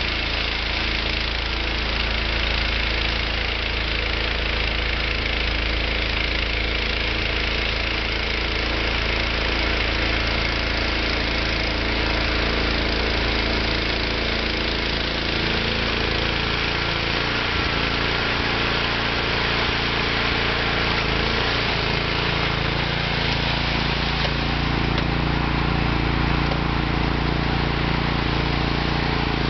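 ZLST 1101 Q snow thrower's engine running steadily as the machine clears snow.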